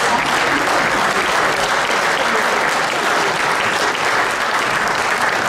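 An audience applauding steadily, a dense even clapping with no letup.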